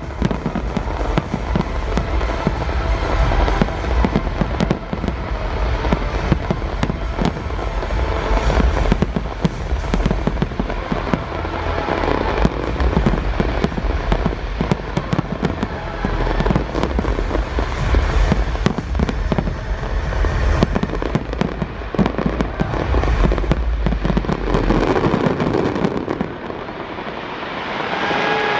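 Fireworks display going off in a rapid, continuous barrage of bangs and crackles with a deep rumble, easing off near the end.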